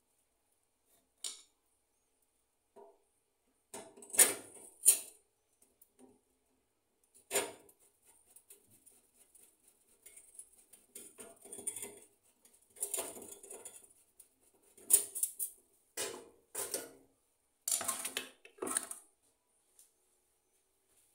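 Irregular metallic clinks and knocks of tools and parts against a gas stove being reassembled, coming in short clusters with pauses between, a few of them sharper.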